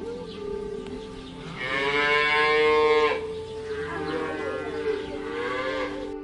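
Cattle mooing: one long, loud moo about a second and a half in, then a second, quieter moo that rises and falls in pitch.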